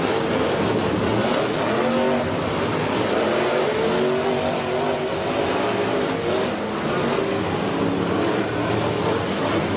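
Monster Jam truck's supercharged V8 engine revving, its pitch rising and falling repeatedly over a dense, steady noise.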